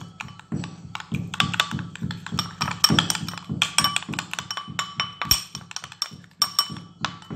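A spoon stirring a sugar, olive oil and cinnamon mixture, clinking rapidly and unevenly against the bowl, with each clink ringing briefly.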